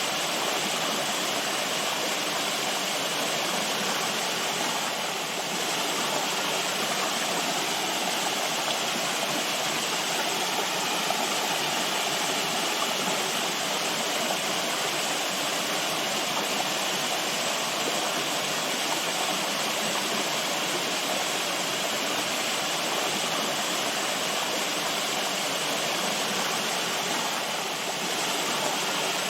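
Natural running water, rushing steadily and evenly with no breaks.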